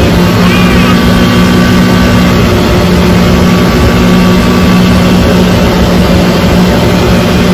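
Arctic Cat Wildcat XX side-by-side's twin-cylinder engine running at a steady pitch while under way, with wind rushing over the microphone in the open cab.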